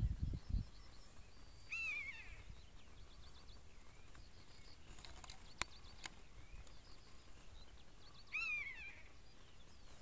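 A soaring bird of prey calling twice, about six seconds apart, each call a short clear cry that falls in pitch at the end. Faint chirping of small birds runs behind it.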